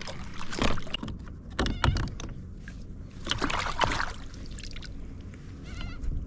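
Handling noises in a kayak while a caught Murray cod is moved about: irregular knocks, rustles and a little water splashing, in three louder spells.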